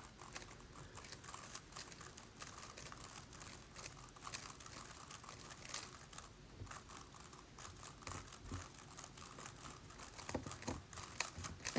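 Plastic twisty puzzle being turned by hand: a steady run of small, irregular plastic clicks and clacks.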